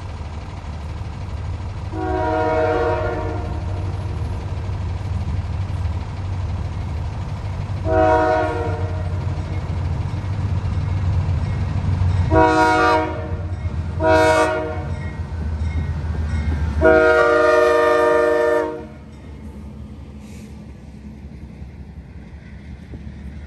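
CSX diesel freight locomotive's multi-chime air horn sounding for a road grade crossing: five blasts, the middle two shorter and the last held longest, over the low rumble of the locomotive's engine. After the horn stops, the freight cars roll past more quietly.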